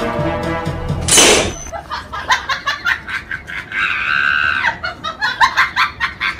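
Comic brass music cut short by a balloon bursting with a loud bang about a second in. A run of quick sharp knocks follows, with a short shrill cry a few seconds later.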